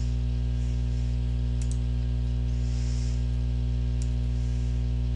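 Steady electrical mains hum on the microphone recording, with a few faint clicks of a computer mouse, a double click under two seconds in and a single one about four seconds in.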